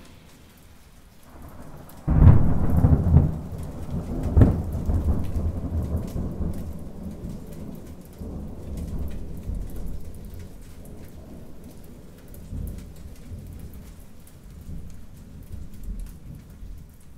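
A sudden loud, low rumbling crash about two seconds in and a sharp crack about two seconds later, then a long low rolling rumble that slowly dies away, over a faint crackling hiss.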